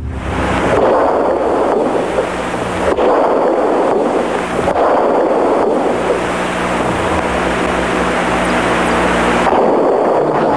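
Old, noisy audio recording presented as the real gunshot sound of the time: a steady rushing hiss with a low hum underneath. No distinct shots stand out.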